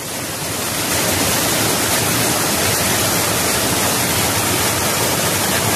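Water gushing out of an opening in a stone wall and cascading over boulders: a loud, steady rush of splashing water close to the microphone.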